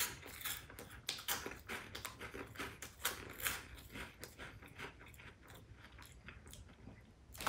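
Chewing a mouthful of puffed, milk-flavoured caramel corn: a run of crisp crunches that thin out over the last couple of seconds as the snack softens and melts in the mouth.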